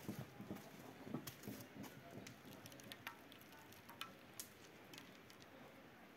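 Faint irregular crackling and sizzling with scattered small clicks from a wet grey coating on a sac iron griddle set over a wood fire, as a hand rubs it across the surface.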